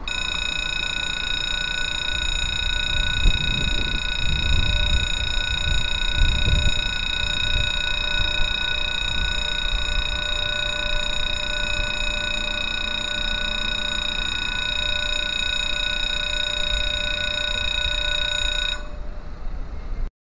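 Railway level crossing warning alarm ringing with one steady, multi-tone electronic ring that stops abruptly near the end. A low rumble lies beneath it.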